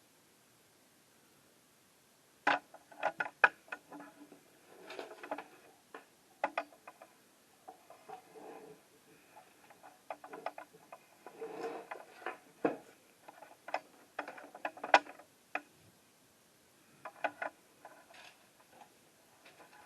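Unboxing handling noise: sharp clicks and knocks mixed with short bursts of rustling, as packaging and a grow-light panel are handled. It starts about two and a half seconds in and runs on irregularly.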